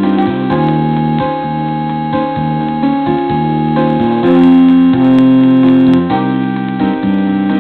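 Keyboard music with a piano-like sound, playing held chords that change every second or so.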